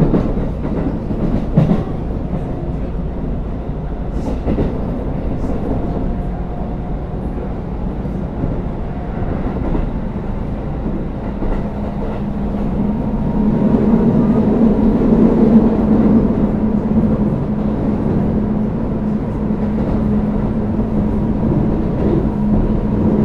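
Running sound inside a motor car of a Shinkeisei Series 8900 electric train with Mitsubishi IGBT-VVVF traction control, on the move between stations. The wheels click over rail joints a few times early on, and about halfway a steady hum comes in as the running noise swells.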